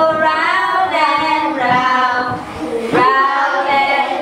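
A group of young children and a woman singing a song together, with long held notes.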